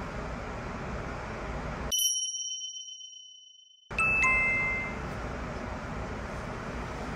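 A bright chime-like ding sounds about two seconds in, with the background cutting to dead silence as it rings out. About two seconds later a second, lower set of chime tones rings briefly as a steady background hiss returns.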